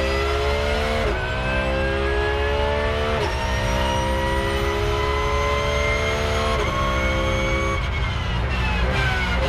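Porsche 911 GT3 R race car's flat-six engine heard onboard at full throttle, its pitch climbing through the gears with three quick upshifts, about one, three and six and a half seconds in. Near the end the engine note falls steadily.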